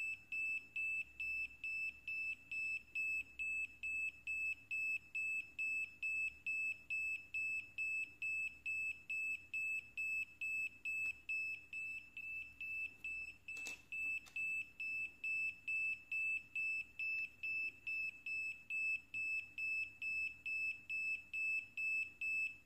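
Small piezo buzzer on an NE555/4017 test board beeping evenly, a little over two high-pitched beeps a second, keyed on and off by the NE555's clock pulses. This shows the 555 is oscillating while the 4017 test runs.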